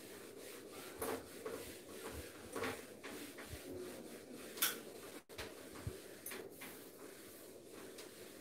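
Handheld whiteboard eraser wiping across a whiteboard in repeated rubbing strokes, with a few sharper, louder strokes.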